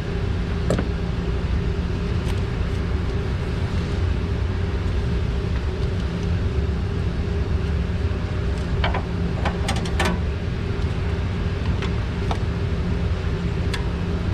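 A steady low motor drone with a constant hum runs throughout. A few sharp metallic clicks and clinks come about nine to ten seconds in, from hand tools on the valve cover bolts.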